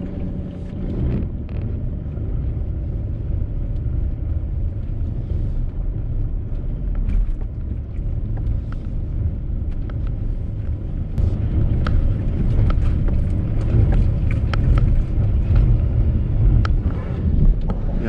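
Car driving slowly on a snowy forest track: a steady low rumble of engine and tyres, with scattered sharp clicks and crackles that come more often in the second half.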